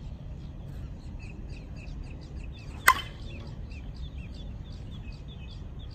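Miken Freak Primo slowpitch softball bat hitting a pitched softball once, about three seconds in: a sharp ping that rings briefly. Birds chirp throughout.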